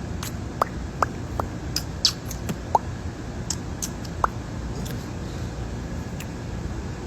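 A handful of short, high squeaks and small sharp clicks, scattered through the first half, over a steady low background hum.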